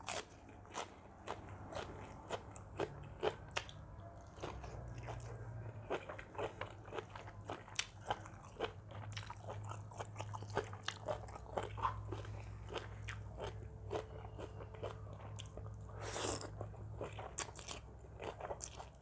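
Close-up eating sounds: biting and chewing crunchy food, seafood papaya salad, with many small crunches in an irregular run and a steady low hum underneath.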